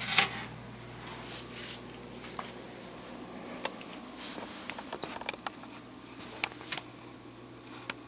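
Handling noises: scattered light clicks, taps and rustles, with a sharper knock just after the start, over a low steady hum.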